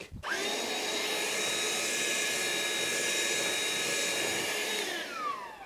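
Ryobi cordless handheld vacuum switched on and running steadily as it sucks concrete drilling dust off a block, a motor whine over rushing air. Near the end it is switched off and the motor winds down with a falling whine.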